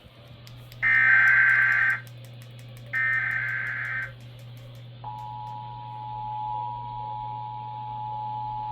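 Emergency Alert System relay: two one-second bursts of screechy digital SAME header data, a second apart. About five seconds in, the steady two-tone EAS attention signal begins and holds. A low electrical hum runs underneath.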